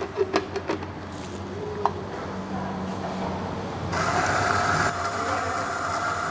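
A few sharp clicks as the stainless steel dosing cup is set under the spout, then about four seconds in the Mahlkönig X54's 54 mm flat-burr grinder motor starts and runs steadily with a whine, grinding a 21 g dose of coffee beans.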